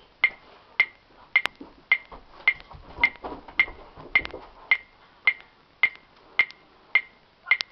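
A mysterious steady ticking: sharp, evenly spaced ticks a little under two a second, with faint rustling underneath.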